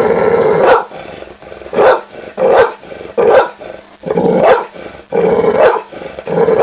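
A dog growling and barking in a run of about seven short, loud bursts, with quieter growling between them.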